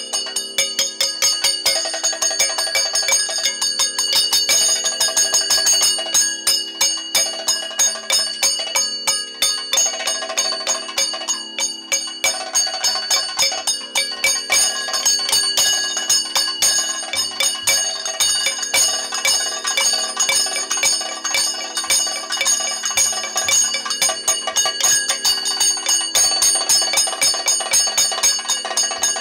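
Kathakali percussion playing fast without song: rapid strokes from the chenda and maddalam drums under the steady metallic ringing of the bell-metal chengila gong and ilathalam cymbals.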